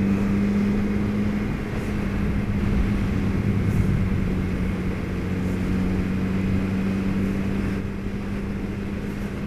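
Suzuki B-King's inline-four engine running at steady, unchanging revs, with wind and road noise, heard from a helmet-mounted camera microphone as the motorcycle rides along.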